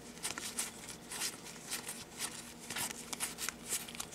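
Cardboard game cards being slid one at a time from one hand to the other while a deck is leafed through: a quick, irregular series of soft swishes and flicks, about two to three a second.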